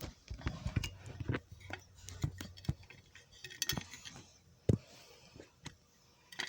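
Handling clatter of a fire alarm pull station: irregular clicks, knocks and light metallic rattles, with one sharp knock about three-quarters of the way through.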